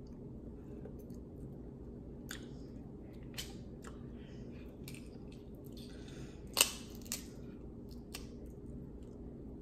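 Boiled crab leg shells being cracked and peeled apart by hand: scattered small cracks and snaps, with the sharpest crack about two-thirds of the way through and another just after.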